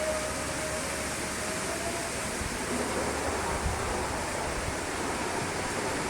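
Steady, even rushing background noise of the outdoors, with the last of a horn-like drone, the reported strange 'trumpet sounds', fading out right at the start.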